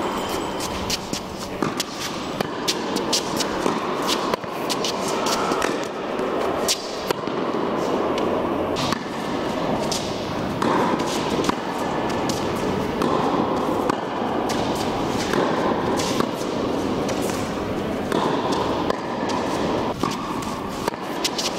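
Tennis rally in a large indoor hall: repeated sharp pops of the ball struck by rackets and bouncing on the court, at irregular intervals over steady background noise.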